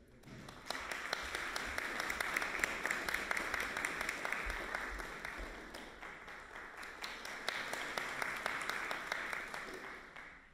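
Audience applauding, dense clapping that starts about half a second in and dies away near the end.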